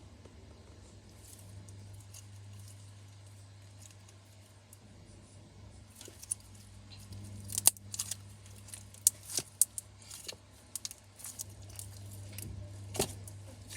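Slime being handled, quiet for the first few seconds, then from about six seconds in a quick run of sharp sticky clicks and pops, over a low steady hum.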